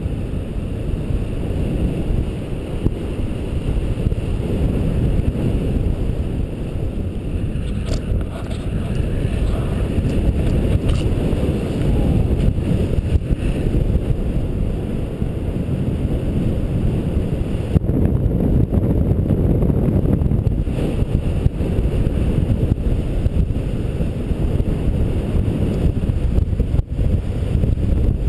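Steady low rumble of wind buffeting the microphone, the rush of airflow during a glide.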